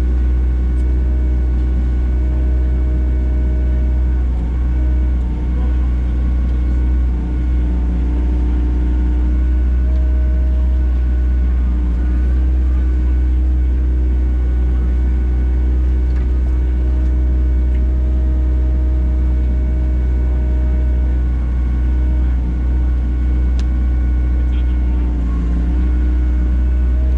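Digging machine's engine running steadily under load, with a steady hydraulic whine that fades in and out as the machine works.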